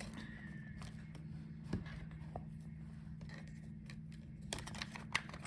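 Faint clicks and taps of small plastic laptop parts being handled as the speaker cable is worked free of its routing, with one click about two seconds in and a few more near the end, over a steady low hum.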